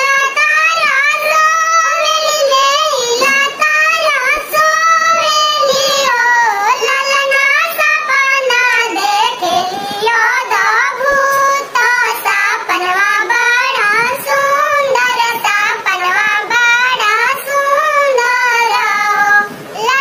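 A very high, cartoon-like voice singing a Karma jhumar folk song in one continuous melodic line, with only brief pauses for breath.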